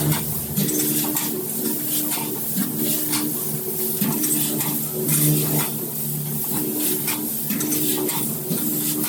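Bag-in-bag packing machine running: a low motor hum that switches on and off in short cycles, with repeated clicks and clatter.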